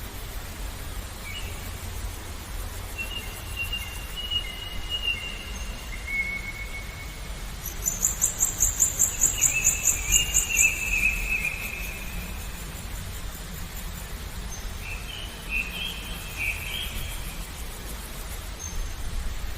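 Songbirds calling in short whistled phrases, with a fast, high pulsing trill joining for a few seconds in the middle, over a steady low background hum.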